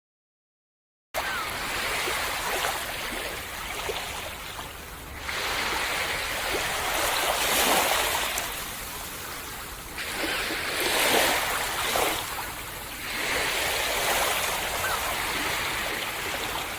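Ocean waves breaking and washing up a beach, the surf swelling loudly about three times and easing between surges. It starts suddenly about a second in.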